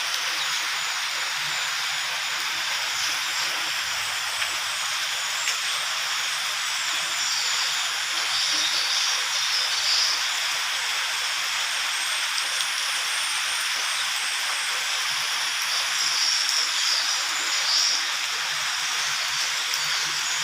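Steady rain falling, an even hiss that swells slightly twice.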